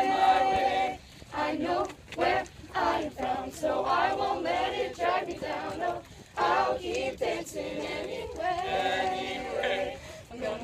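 A group of young voices singing together without accompaniment, in phrases, with a long held note at the start and another near the end.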